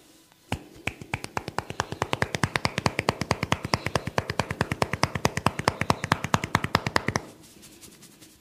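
Percussive massage tapping: rapid, even strikes, about eight a second, that start about half a second in and stop abruptly near the end.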